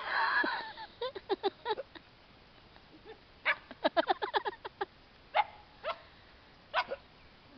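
Dog yipping and whining in short, high cries that drop in pitch. It opens with a louder rough burst, then comes two quick flurries of cries, then a few single yips spaced out near the end.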